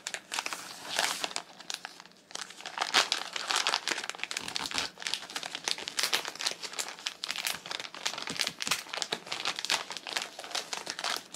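A plastic shipping mailer being crinkled and torn open by hand: a dense run of crackles, with a brief lull about two seconds in.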